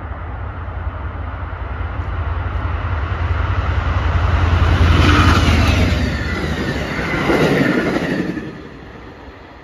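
A diesel-hauled commuter passenger train passing close by: the locomotive's low engine hum and wheel noise on the rails build to a peak as it goes by, then the coaches roll past. The sound drops off suddenly near the end as the last car clears.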